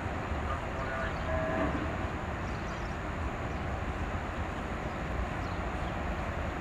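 Steady low rumble of a patrol boat running under power, its engines mixed with the wash of its bow wave and wake.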